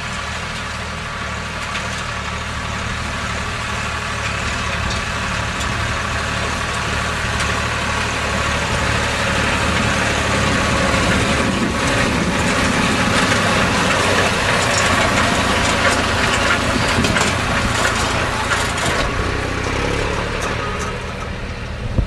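Tractor engine running under load while it pulls a self-loading forage wagon, whose pickup and rotor draw a hay windrow in past the cutting knives. It grows louder as it comes close, is loudest from the middle on, and eases off near the end as it moves away.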